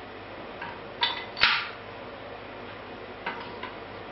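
Steel dies of a blacksmith's guillotine tool knocking against its bolted steel frame as they are fitted by hand: several light metallic clinks. The loudest comes about one and a half seconds in and rings briefly, and there are two more clinks near the end.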